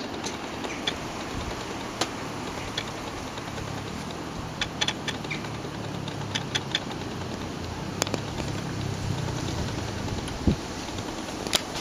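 Outdoor background noise with a low hum that builds through the middle and fades again, and scattered sharp little clicks.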